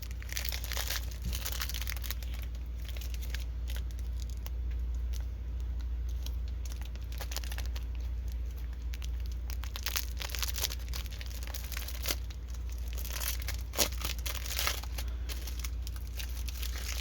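A diamond painting kit's packaging bag being crinkled and pulled at by hands hunting for its opening, with irregular crackles that get louder from about ten seconds in, over a steady low hum.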